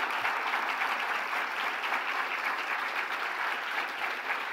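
Audience applauding steadily, many hands clapping at once at the end of a keynote speech.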